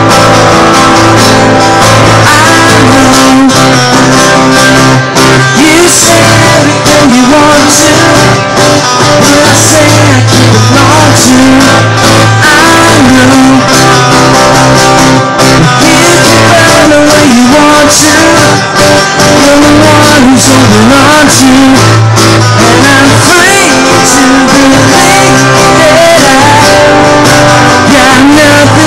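Live music: an acoustic guitar strummed, with a man singing over it.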